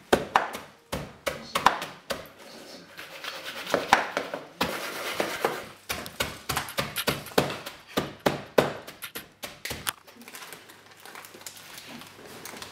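Wooden rolling pin pounded end-down into a plastic tub, crushing digestive biscuits: an irregular run of dull thuds, several a second, thinning out about ten seconds in.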